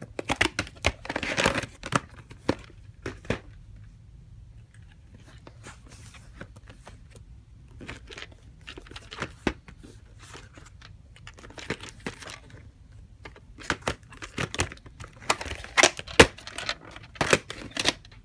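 Plastic clamshell VHS cases and cassettes being handled: cases snapped open and shut, tapes lifted out and set down, in irregular runs of sharp plastic clicks and knocks. There is a quieter stretch a few seconds in, and the clicks are densest and loudest near the end.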